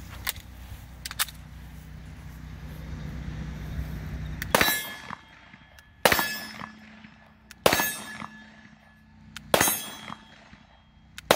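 Canik TP9DA 9mm striker-fired pistol firing a slow string of five shots, spaced about one and a half to two seconds apart, after a few seconds with only a couple of faint handling clicks. The first shot is the long, heavy double-action pull; the following shots are in single action.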